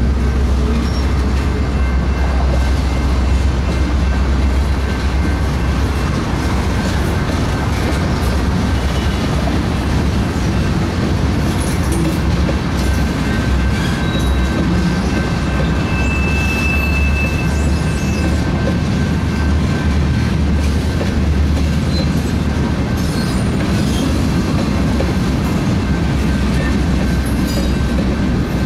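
Freight cars rolling past close by: a steady loud rumble of steel wheels on rail with clickety-clack over the joints, and a short high wheel squeal about two-thirds of the way through.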